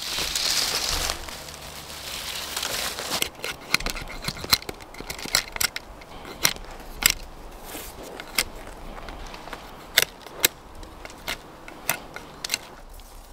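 Knife carving a wooden stick: a rustle at first, then over a dozen sharp, irregular clicks as the blade bites into the wood.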